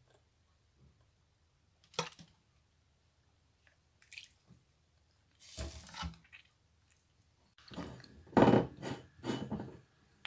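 Kitchen handling sounds as a plastic measuring spoon and sauce bottles are used over a glass bowl of raw chicken wings. There is a sharp tap about two seconds in, a short clatter around six seconds, and a louder run of knocks and rustling near the end.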